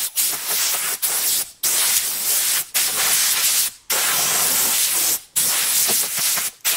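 Compressed-air blow gun blasting air in repeated bursts of about a second each, with brief breaks between them, blowing sanding dust off a leather car seat keyed with 500-grit paper before it is degreased and painted.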